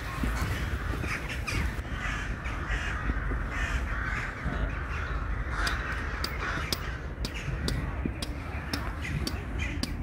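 Crows cawing repeatedly in the trees, over a steady low rumble. A run of light, sharp clicks comes in over the second half.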